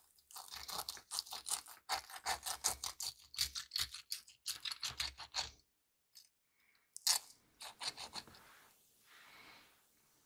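Crisp fried breading crunching in a quick run of sharp strokes, about five a second for some five seconds, then a shorter run after a brief pause.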